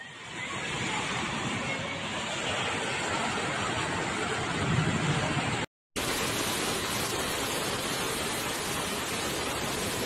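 Floodwater rushing, a steady loud rush of water. It cuts out for a moment a little past halfway and then carries on as a similar steady rush.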